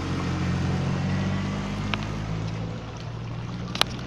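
An engine or motor running steadily with a low hum over an even rushing hiss, easing off a little in the last second, with a sharp click near the end.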